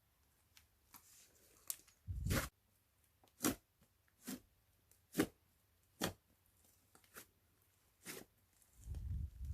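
Slime being worked by hand, giving sharp pops and crackles about once a second, with a duller thud early on and another near the end.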